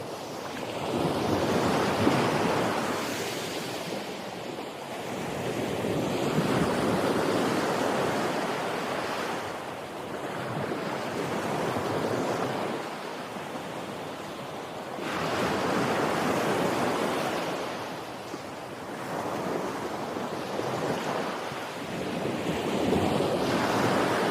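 Sea waves breaking and washing up a beach, the surf swelling and fading about every four to five seconds.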